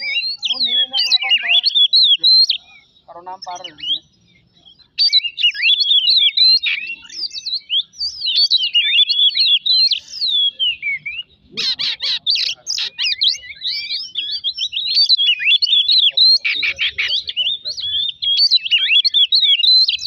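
Oriental magpie-robin (kacer) singing loud, rapidly varied whistled phrases in quick succession, broken by a pause of about two seconds a few seconds in and a shorter one about halfway.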